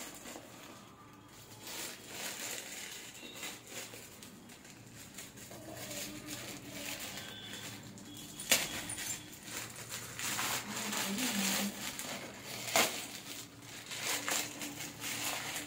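Plastic courier mailer bag rustling and crinkling as it is pulled and torn open by hand, with two sharp snaps from the plastic, one about halfway through and one later on.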